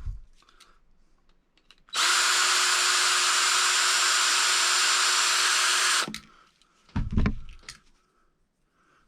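Electric drill running at a steady speed for about four seconds, starting and stopping abruptly, followed by a couple of low knocks.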